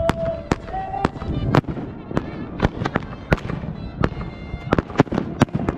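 Professional fireworks display with shells bursting in a rapid, irregular string of sharp bangs, about four a second.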